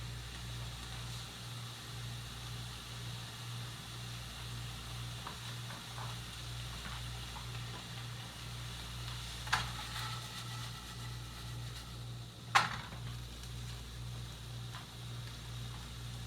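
Tiger shrimp sizzling in a hot pan, with two sharp knocks against the pan about nine and twelve seconds in.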